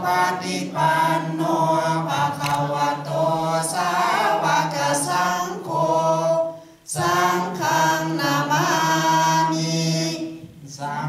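Congregation chanting a Buddhist recitation in unison, many voices held on a nearly steady reciting pitch, with a short break about seven seconds in.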